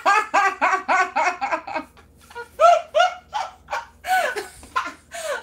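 A woman laughing hard in a quick run of pulsing laughs, pausing briefly about two seconds in and then laughing again.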